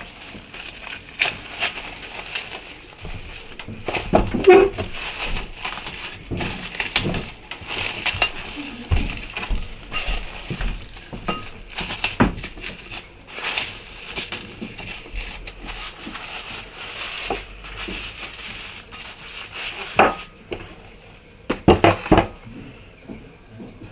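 Plastic cling film crinkling and rustling as it is pulled off the roll, cut and pressed into a ceramic bowl to line it, with a few sharper knocks near the end.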